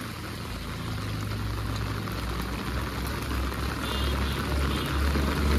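Steady rain hissing down on a wet street, with a low rumble that builds and grows louder through it.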